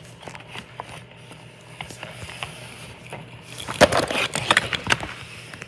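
Scraping and knocking as a cardboard pizza box is handled close to the microphone, with a busy cluster of knocks about four seconds in, over a steady low hum.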